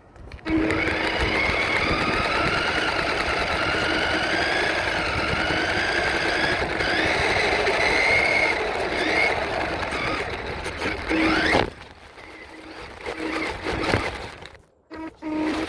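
Radio-controlled truck's motor whining under throttle, its pitch wavering up and down as it drives. Near the end it rises quickly and then cuts off sharply.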